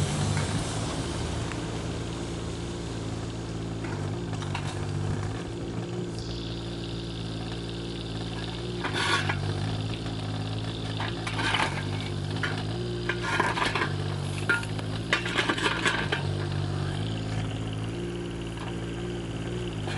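Kubota KX019 mini excavator's diesel engine running steadily, its pitch dipping and rising as the hydraulics take load, while broken masonry clatters and scrapes in several bursts through the middle and latter part.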